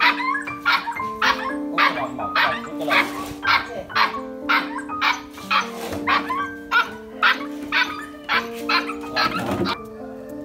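A puppy yelping over and over, about two short yelps a second, over background music with held notes; the yelps stop near the end.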